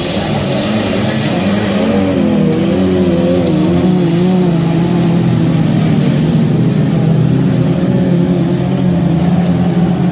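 Standard-class autocross cars' engines running hard on the dirt track, their pitch wavering up and down as they rev and lift through the corners.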